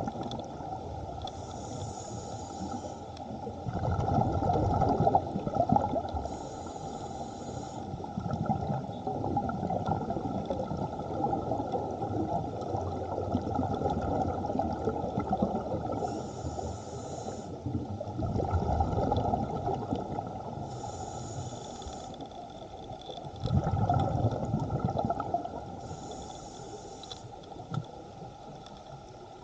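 Scuba diver's regulator breathing underwater: a hiss on each inhale and a louder burst of bubbling on each exhale, repeating in a slow breathing rhythm.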